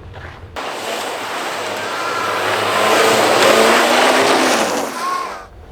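Rally car at speed on a snow stage: engine running hard under the hiss of tyres on snow, starting abruptly about half a second in, swelling to its loudest around three and a half seconds in, then fading and cutting off shortly before the end.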